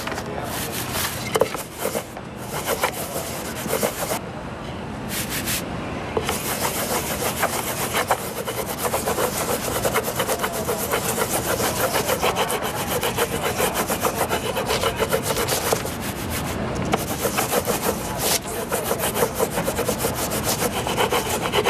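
A baren rubbed briskly over the back of a sheet of paper laid on an inked woodblock, pressing the colour from the carved block into the print. It is a rapid, scratchy rubbing in short bouts at first, then steady from about six seconds in.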